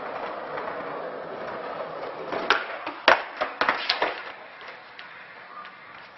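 Skateboard wheels rolling on asphalt, then a sharp clack about two and a half seconds in and a quick run of clattering knocks as the board hits the ground and tumbles away from a bailed trick, the skater running it out on foot.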